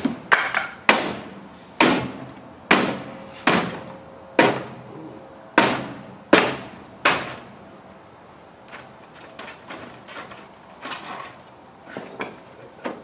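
Hatchet blows at a wooden shipping pallet's hold-down: about ten heavy strikes, roughly one a second, each with a short ringing tail, then a run of lighter knocks and taps over the last few seconds. The strikes are an attempt to free a bolt that will not come out.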